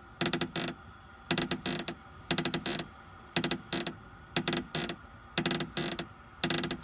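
Door of a 2014–2015 Mini F56 hatchback, door panel removed, creaking as it is pushed by hand: a short burst of crackling creaks about once a second, seven times. The owner has not found the source of the creak, and a spray of WD-40 has not cured it.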